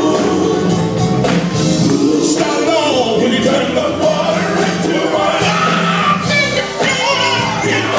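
Live gospel music: men's voices singing over instrumental backing.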